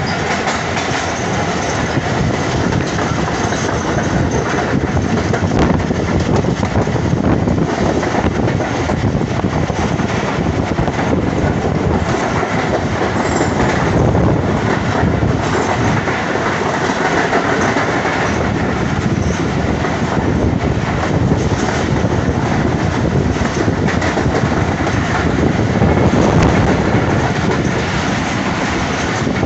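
Steady running noise of the 15UP Karachi Express passenger train at speed, its coach wheels rolling and rattling on the rails, heard from the coach's open doorway.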